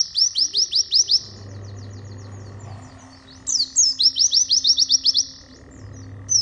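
White-eye (pleci) singing its fast rapid-fire song: rising chirps at about eight a second, in a burst of about a second, then a pause, another burst in the middle, and a new burst starting right at the end. A faint low hum sits under the pauses.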